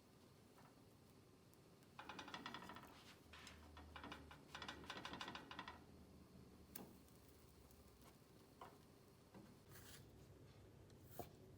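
Faint rustling and handling noises for a few seconds, followed by a few light, separate clicks.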